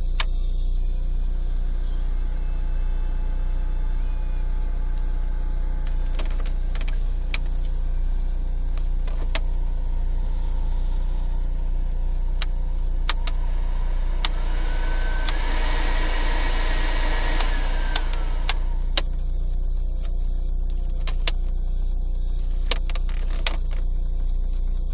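Volkswagen Polo interior: a steady low hum of the car running, with sharp clicks of dashboard buttons and switches every second or two. For about three seconds in the middle there is a rushing hiss with a whine that rises as it starts and falls as it stops.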